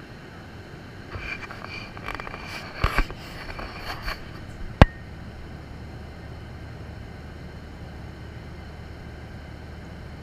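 Steady rushing noise of an airliner cabin, with a few rustles and knocks between about one and four and a half seconds in and one sharp click just before five seconds, the loudest sound.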